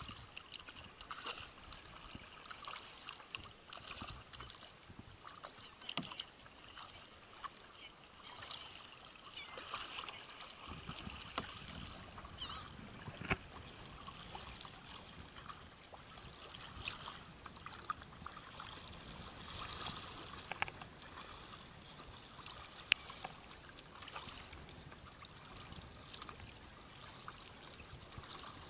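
Water trickling and splashing quietly around a kayak as it is paddled, with a few light sharp knocks here and there.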